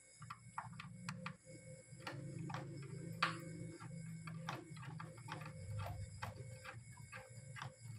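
Scattered small clicks and taps of hand tools and metal hinge parts being worked on, over a low steady hum.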